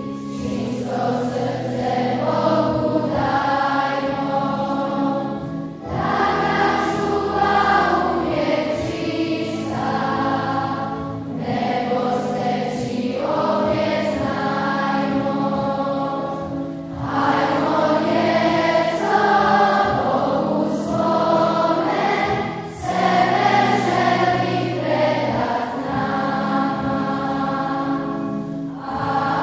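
Large children's choir singing a hymn, in phrases of about five or six seconds with short breaks between them.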